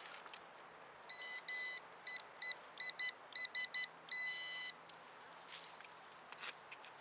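Metal-detecting pinpointer beeping: about nine short, high electronic beeps come quicker and then join into one longer tone of about half a second, as the probe closes on a buried coin in the dug soil.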